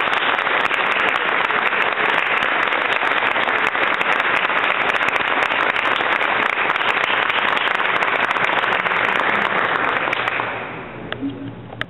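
Congregation applauding: many hands clapping densely and loudly, dying away about ten and a half seconds in.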